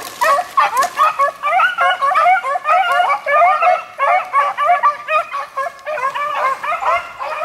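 Several beagles baying on a rabbit's trail: many voices at different pitches overlap in a continuous run of short, quick bays with no pause.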